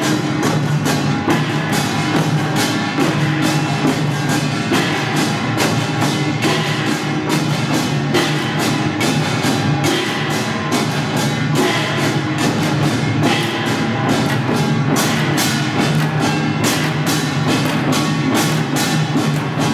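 Korean samulnori/pungmul percussion ensemble playing: kkwaenggwari small brass gongs clanging rapidly over hand-held drums beaten with sticks, in a fast, driving, unbroken rhythm.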